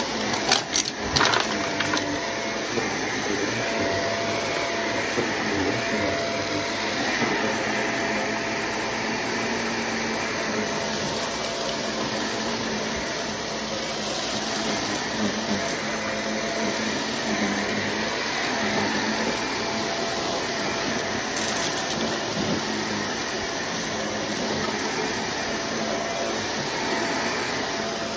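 Corded stick vacuum running steadily over carpet. About a second in there are a few sharp clicks as bits of debris are drawn up into it.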